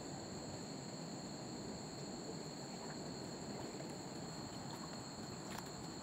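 Night insects trilling steadily in two high, unbroken tones over a soft bed of background noise, with one faint tick near the end.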